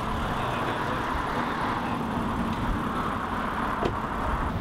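Steady vehicle noise from a pickup truck running close by, with a faint click near the end.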